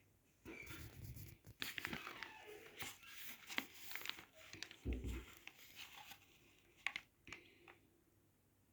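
Paper cup being handled: rustling and crinkling paper for several seconds, with a low thump about five seconds in and a couple of sharp ticks after the rustling stops.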